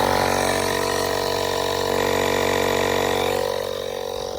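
Portable air compressor running steadily, inflating a tire through an inflator gun set to a target pressure, then growing quieter near the end.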